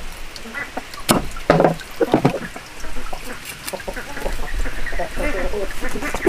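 Steel cleaver chopping broccoli on a wooden board: a few sharp chops in the first two seconds. Ducks quack in the background.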